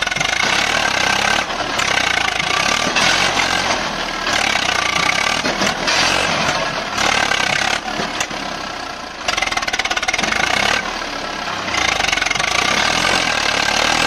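Swaraj 744 tractor's three-cylinder diesel engine working hard as it pulls a trolley loaded with soil through soft dirt. Its pitch and loudness rise and fall every second or two as the engine is pushed.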